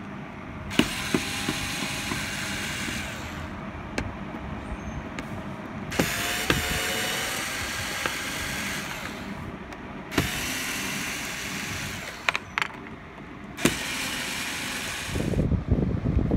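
Ryobi cordless electric screwdriver running in four bursts of a few seconds each, unscrewing the screws that hold the plastic floor trim, with sharp clicks as the bit engages. Low rustling of handling near the end.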